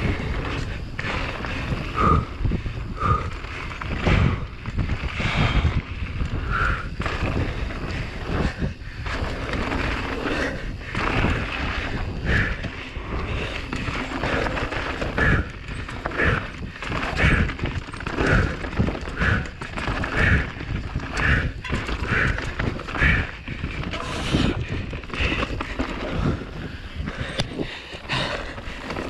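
Full-suspension enduro mountain bike (Giant Reign Advance) ridden fast down a rough dirt trail: tyres on dirt, with irregular knocks and chain and frame rattle over bumps and roots, under steady wind noise.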